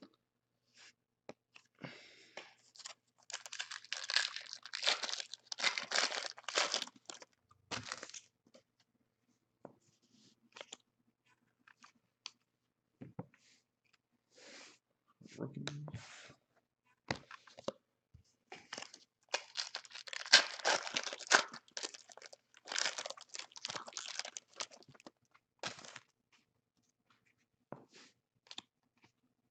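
Plastic trading-card pack wrappers being torn open and crinkled, in two spells of rustling with scattered light clicks and taps between them.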